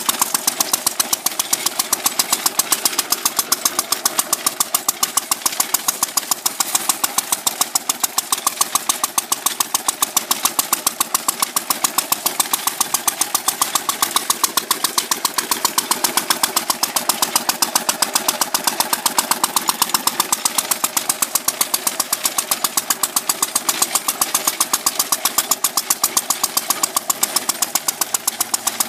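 Standard Monarch walk-behind garden tractor's engine running for the first time. It fires in a steady, rapid, even rhythm of exhaust beats that does not change pace.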